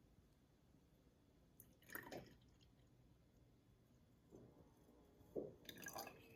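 A few faint wet drips and squelches of liquid, about two seconds in and again in a cluster near the end, over near silence.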